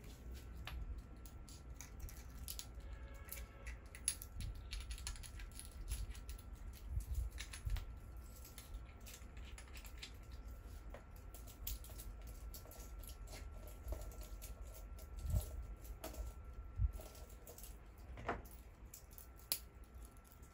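Scattered small clicks and taps of a wristwatch and its metal bracelet being handled, with a few louder knocks.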